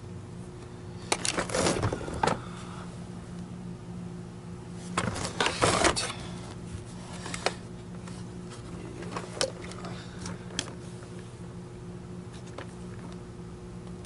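Hands handling the plastic housing and parts of a disassembled carpet cleaner: two bursts of clicking and rattling about a second in and around five seconds in, then a few single clicks, over a steady low hum.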